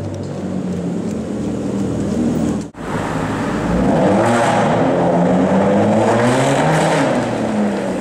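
A car engine running with a garage echo. After a sudden cut about three seconds in, an Aston Martin DBS's V12 with a Quicksilver aftermarket exhaust accelerates up the exit ramp, its pitch climbing for a couple of seconds and then falling back as it eases off near the end.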